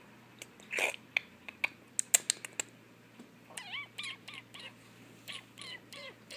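A small puppy whimpering in a series of about eight short, high whines with a wavering pitch in the second half. Before that there is a short huff about a second in and a few sharp clicks, which are the loudest sounds.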